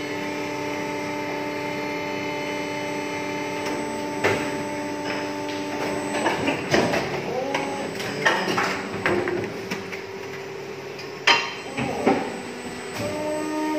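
Plastic injection moulding machines running: a steady whine of several tones from the hydraulic pump motors, which glides in pitch as the machines cycle and falls away near the end. Metallic clanks and knocks from the clamp and mould come every second or two from about four seconds in, the loudest about eleven seconds in.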